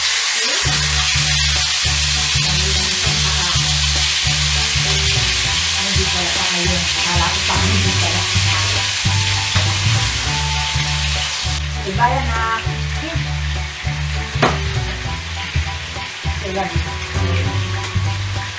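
Marinated chicken pieces sizzling loudly in hot oil in a wok and being turned with a spatula. The sizzle eases off about two-thirds of the way through, with a few scrapes of the spatula, over background music with a steady low beat.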